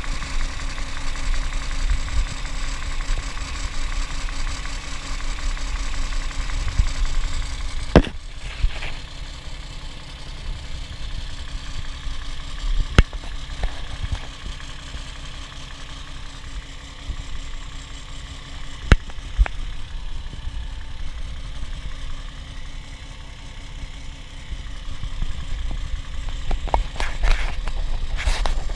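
Toyota 1G-FE inline-six idling with a knock from the front of the engine, under the timing cover. The owner suspects the VVT-i coupling and hears the knock only when hot. A few sharp clicks stand out now and then.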